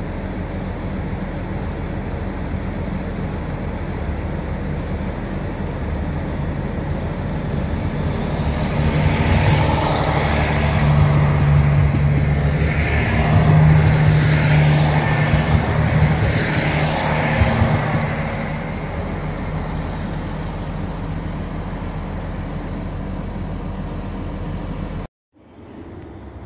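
A train passing through a station. The noise rises about eight seconds in to a loud stretch of wheel and running noise with repeated clattering, then falls back after about ten seconds. The sound cuts off abruptly near the end.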